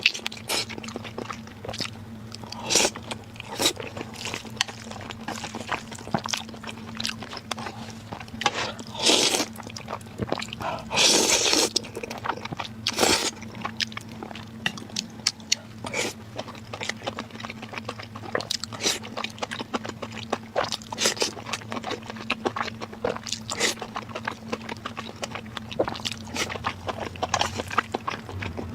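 Close-miked mukbang eating sounds: chewing and biting with many sharp crunchy clicks and wet smacks, and a longer noisy stretch about eleven seconds in, over a faint steady hum.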